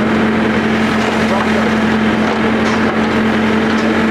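New Holland backhoe loader's diesel engine running steadily under load while the machine digs and dumps soil.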